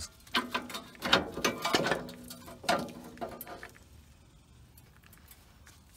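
Metal clinks, rattles and knocks as the freed lower ball joint and the ball joint press tool are handled and pulled away from the steering knuckle. The knocks come thick in the first three and a half seconds, then stop.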